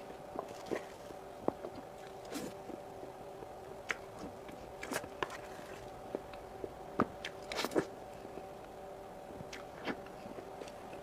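Close-miked eating sounds of soft whipped cream cake: scattered short wet mouth clicks and smacks, a few louder ones about five and seven and a half seconds in, over a steady hum.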